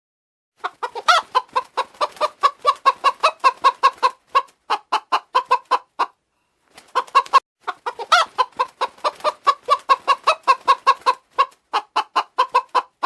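Hen clucking rapidly, about five clucks a second in runs with short pauses, with a louder, higher squawk near the start and again about eight seconds in.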